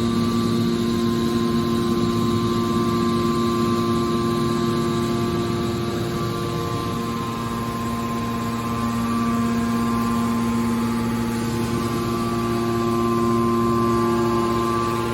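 Hydraulic scrap metal baler shear running: a steady mechanical drone with several fixed humming tones, easing slightly in level around the middle.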